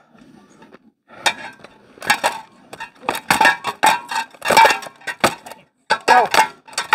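Hard blows in quick flurries: rattan weapons cracking against shields and armour in an armoured combat bout. The blows start about a second in.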